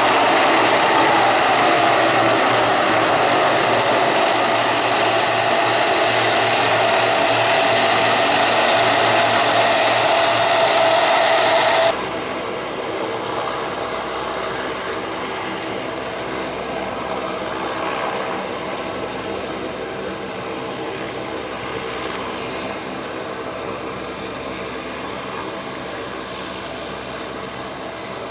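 Lockheed C-130H-30 Hercules' four Allison T56 turboprop engines running while the aircraft taxis: a loud whine whose tone falls about a second in and then holds steady. About twelve seconds in the sound cuts abruptly to a quieter, duller engine drone from farther off, which slowly fades.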